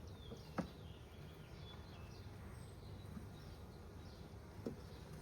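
Honeybees humming low and steady around an open hive, with small birds chirping faintly throughout. Two light knocks, about half a second in and near the end.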